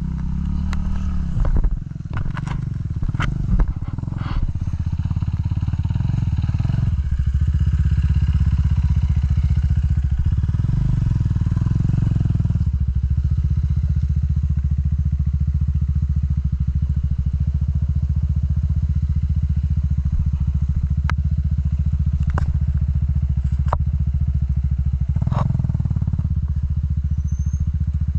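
Single-cylinder off-road motorcycle engine running on a trail, its note shifting in the first half and then holding steady. A few sharp knocks and ticks come over it, clustered in the first few seconds and again later on.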